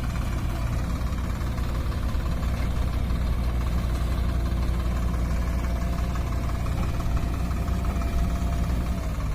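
Heavy diesel engine running steadily at an even, low speed.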